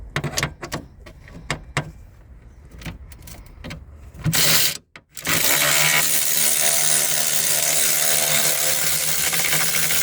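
Tools clicking and tapping on metal, then a power tool gives a short burst just after four seconds and from about five seconds runs steadily with a constant whine, backing out a 10 mm bolt on the radiator cooling fan assembly.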